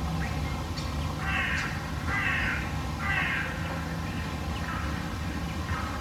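A crow cawing: three harsh caws about a second apart, then two fainter ones, over a steady low hum.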